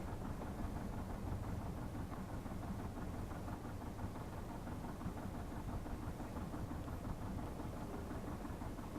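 A small sailboat's inboard diesel engine running steadily at low revs with an even, fast chugging pulse, as when motoring slowly.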